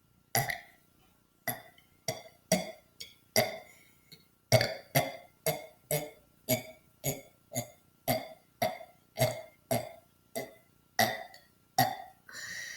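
A person burping on command in a rapid series of about twenty short, deliberate burps, roughly two a second. A longer breathy sound follows near the end.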